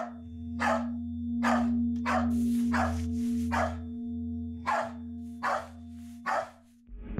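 A dog barking repeatedly, about once a second, over a steady low droning tone that cuts off near the end.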